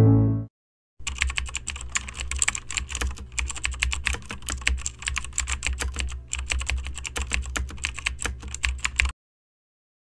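Fast typing on a computer keyboard, many quick keystrokes running for about eight seconds over a low steady hum, starting about a second in and cutting off abruptly.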